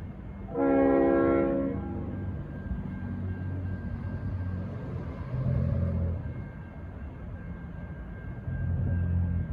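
A Leslie RS5T five-chime horn on a V/Line N-class diesel locomotive sounds one short blast of about a second, a chord of several notes. After it the locomotive's diesel engine runs with a low rumble that swells twice.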